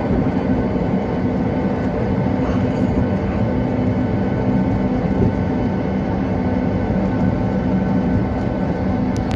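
Steady engine and cabin noise inside a Boeing 737-800 from its CFM56-7 jet engines: a constant rumble with a low, even hum.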